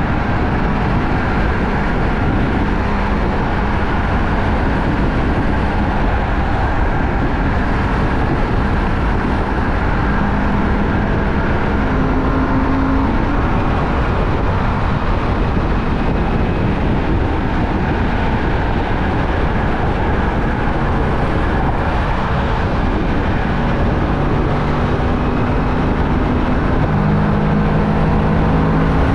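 Kawasaki Vulcan S 650's parallel-twin engine running at speed, mostly under loud, steady wind rush on the microphone. The engine note shifts to a new pitch now and then, stepping up around the middle and again near the end.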